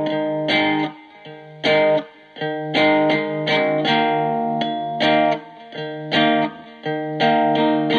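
Electric guitar played through a breadboarded Distortion+ clipping circuit, its clipping diodes swapped in from a diode substitution box. Chords are struck again and again in a loose rhythm, some left to ring for about a second, others cut short.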